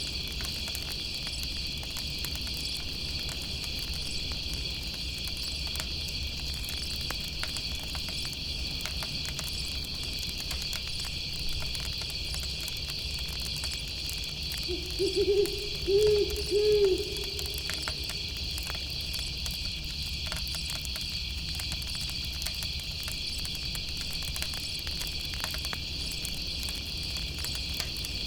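Owl hooting: a short low note followed by three hoots, about fifteen seconds in, over steady high chirring of crickets and faint crackling of a campfire.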